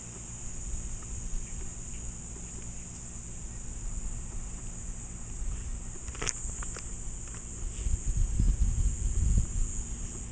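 A steady, high, even insect chorus. A low rumble gets louder about eight seconds in, and there is a single sharp click about six seconds in.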